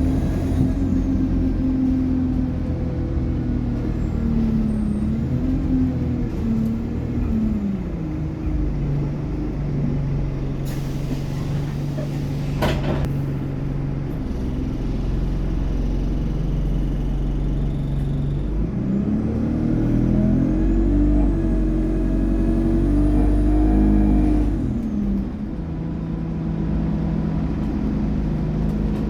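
Alexander Dennis Enviro200 bus engine revving up and down through the Allison automatic gearbox's shifts, with a faint turbo whine. Between the pulls it settles to a steady idle, and there is a short hiss about eleven seconds in.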